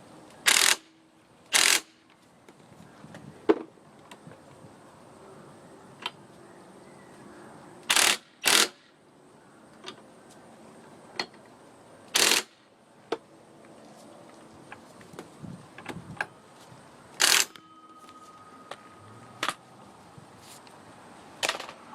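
Workshop tool noise on a moped clutch while a nut is fitted and tightened: about seven short, loud bursts of noise, several seconds apart, with light clicks and clinks of metal parts between them.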